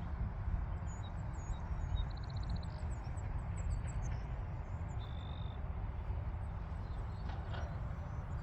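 Wind rumbling on the microphone, with small birds chirping many times and giving a short buzzy trill and a brief whistle in the first half.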